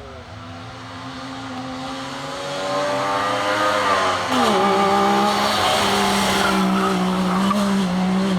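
Wartburg 353 rally car's two-stroke engine coming closer and revving up, growing louder for about four seconds. The pitch then drops sharply and the engine holds a steady, loud note.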